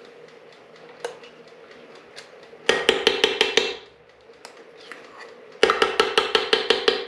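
Metal spoon rapped quickly against the rim of a metal saucepan to knock tomato paste off it: two bursts of about ten fast taps, one about three seconds in and one near the end.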